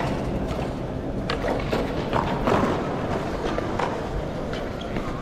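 Street ambience: a steady mix of noise with scattered short knocks and clicks.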